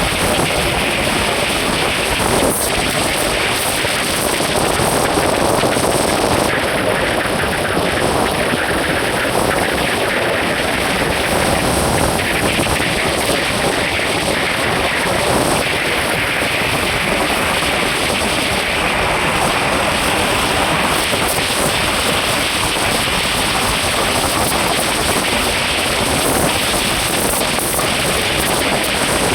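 Vehicle on the move, its engine running steadily, with wind buffeting the microphone.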